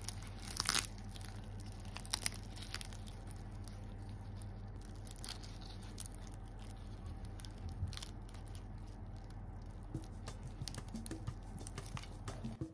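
A crispy, flaky scallion pancake (cong you bing) being pulled apart by hand, its layered crust tearing with scattered crackling crunches that come thicker near the end. A steady low hum runs underneath.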